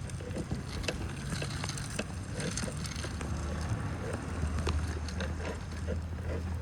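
A vehicle's low engine rumble over street background noise, growing stronger in the second half, with scattered light clicks.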